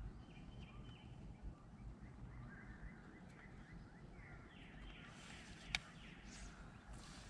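Faint outdoor birdsong: a run of short chirps and trills, with one sharp click near the end.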